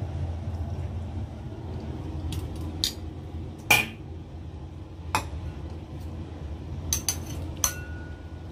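Wire mesh strainer clinking and knocking against a wok and a ceramic bowl while blanched mussels are lifted out and tipped into the bowl: about seven sharp clinks, the loudest about four seconds in, over a steady low hum.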